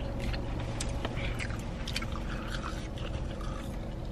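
Chewing with small clicks and rustles of fast food and its packaging being handled, over a steady low hum inside a car.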